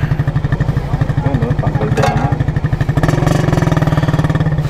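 Motorcycle engine idling, a fast, even pulsing that runs steady and grows a little louder from about three seconds in.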